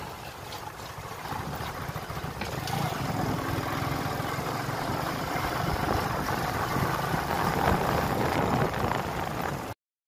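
A vehicle's engine running while driving, with rumble from a rough dirt road, heard from on board. The sound cuts off suddenly just before the end.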